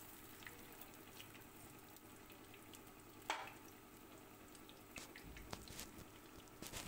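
Marinated fish pieces shallow-frying in hot oil: a faint, steady sizzle dotted with small pops and crackles, with one sharper pop about three seconds in.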